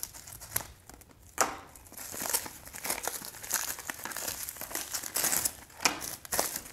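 Thin plastic and paper packaging crinkling and rustling as it is handled and torn open, with a sudden loud crackle about a second and a half in.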